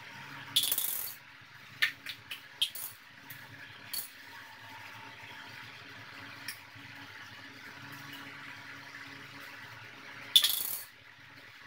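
Clicks and rattles of small make-up items being handled, in a short cluster near the start and a louder half-second rattle near the end, over a steady low background hum.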